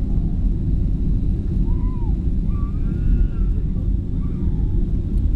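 Steady low rumble of an airliner cabin during landing: engine and airflow noise heard from a window seat.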